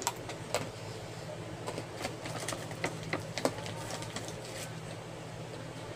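Hard breadsticks being crunched: scattered sharp crackling clicks that come thickest in the middle, over a steady low hum.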